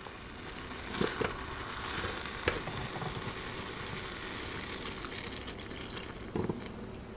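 Water poured from a plastic bottle into a mini rice cooker pot of hot, thick lentil soup: a steady trickle and splash starting about a second in, with a few light clicks and knocks.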